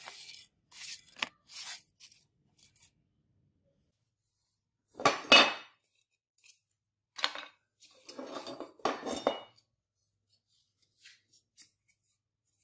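A steel bill hook blade being handled on a hard tabletop: short bouts of clinking and clattering, loudest about five seconds in, then a longer stretch of scraping handling noise.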